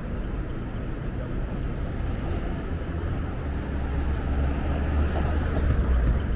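Wind buffeting the microphone, a low rumble that grows stronger from about halfway through, over steady city street noise.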